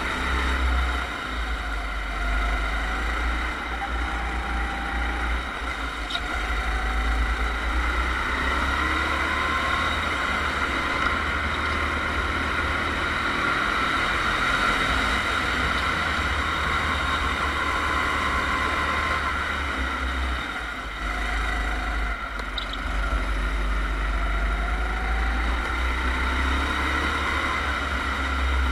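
Go-kart engine running at speed, heard from an onboard camera on the kart, its pitch rising and falling as the kart brakes and accelerates through corners, over a steady low rumble.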